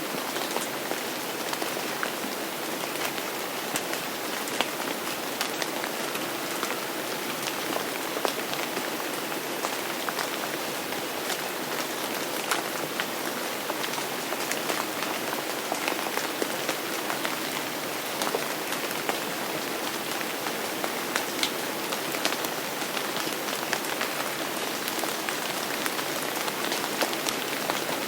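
Steady rain falling, a dense even hiss with many individual drops ticking sharply through it.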